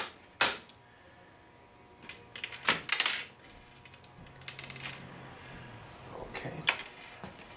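Small hard parts being picked up and set down on a glass tabletop: a few separate sharp clicks and clatters, with a short scraping rustle in between.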